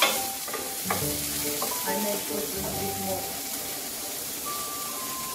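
Diced onion and chili sizzling in olive oil in an electric skillet, the onion starting to brown. A wooden spatula stirs and scrapes through them, knocking against the pan about once a second early on.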